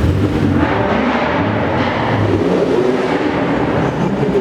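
Car engine and exhaust running loud and steady at low revs, with a deep, uneven drone.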